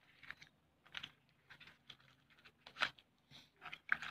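Small cardboard box being handled and opened, with light paper rustling and scattered soft clicks and taps, the strongest about three seconds in.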